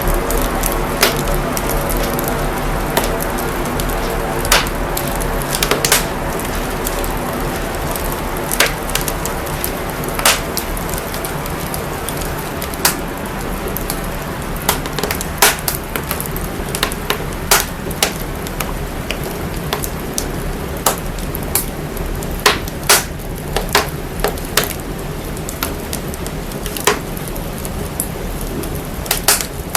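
Crackling fire run through heavy signal processing: irregular sharp pops and crackles, growing more frequent in the second half, over a steady drone with a deep sub-bass rumble and layered tones that fade over the first half.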